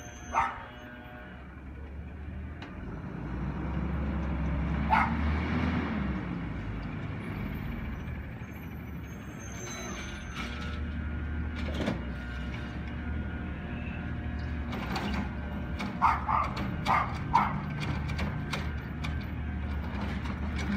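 Garbage truck's diesel engine running at a low rumble as it pulls up and waits, with scattered mechanical clicks and knocks. A dog barks near the start, again about five seconds in, and in a quick run of four or five barks near the end.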